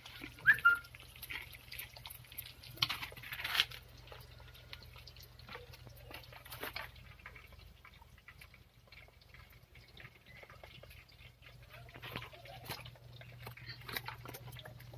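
Chicken pieces frying in hot oil in a wok, crackling and popping, densest in the first few seconds and then thinning to scattered pops. A short high chirp sounds about half a second in.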